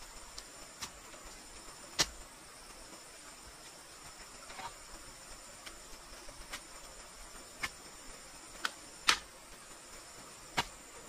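Bamboo pole knocking as it is thrust down into the ground, about seven sharp irregular knocks, the loudest about two seconds in and near nine seconds. A steady high chirr of insects runs underneath.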